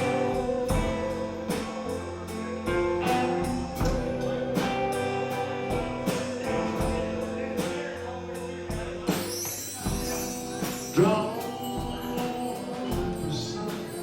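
A band playing a slow song: sustained held notes over a steady beat of light percussion strikes. A singer's voice comes in about nine seconds in.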